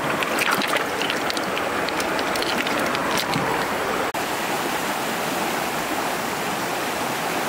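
Hands splashing and swishing in a shallow running stream while rinsing forest snails, many quick splashes over the steady rush of the water. About four seconds in the splashing stops and only the even rush of a fast stream over rocks remains.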